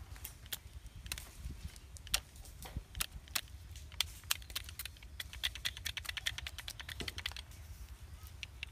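Knife cutting into a banana leaf stalk to shape it into a basting brush. It makes irregular sharp clicks that quicken into a rapid run about five to seven seconds in.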